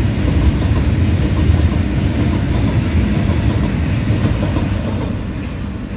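A freight train's open-top steel wagons rolling past close by: a steady rumble and clatter of wagon wheels on the rails, easing off a little near the end.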